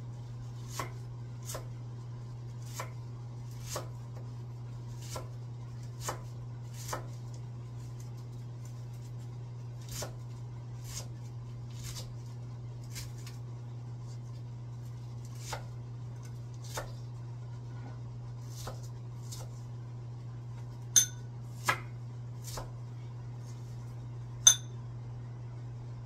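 Kitchen knife cutting vegetables on a wooden cutting board: separate sharp knocks at an uneven pace, roughly one a second, with a few louder, ringing knocks near the end. A steady low hum runs underneath.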